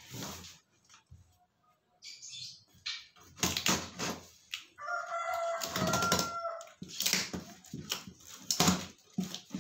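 Cardboard mattress box being handled and pulled open, with irregular scraping and ripping noises. About halfway through, a rooster crows once for about two seconds.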